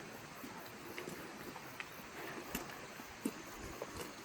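Scattered light clicks and knocks of footsteps outdoors, over a steady hiss with a faint high ticking in the background.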